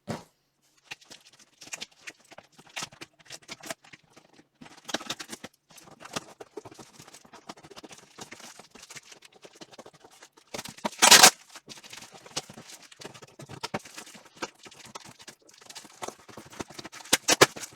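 Cardboard box and styrofoam packing being opened and handled: a run of small knocks, clicks and scrapes, with one louder rasping scrape about eleven seconds in.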